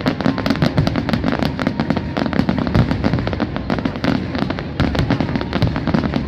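Wood fire crackling and popping, with many sharp snaps a second over a low rumble.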